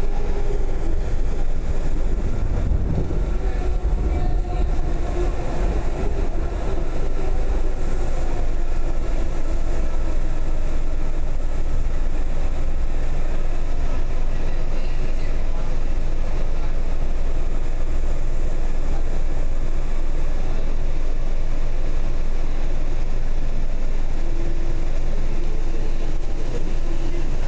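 Washington Metro train heard from inside the railcar: a steady low running rumble with a faint electric motor whine that comes and goes.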